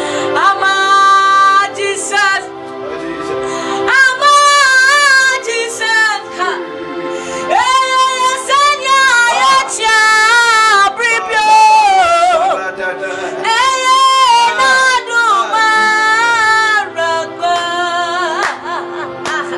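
A woman singing a gospel worship song in long, impassioned phrases with a strong vibrato, over steady sustained backing chords.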